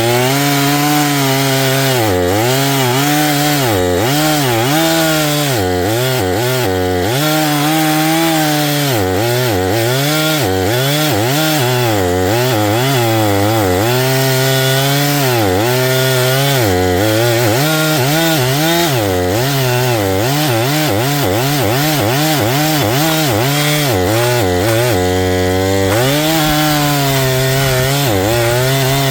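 Two-stroke chainsaw running at high revs and cutting wood, its pitch repeatedly dipping and picking back up as the chain bites into the log and frees again.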